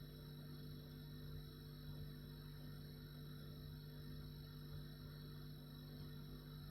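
Refrigerator running with a steady, unchanging low hum: one strong low tone with several fainter steady tones above it, over a soft even hiss.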